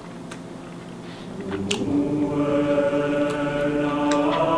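A choir holding one sustained 'aah' chord, swelling in about a second and a half in, with a light clink of a fork on a plate just before it.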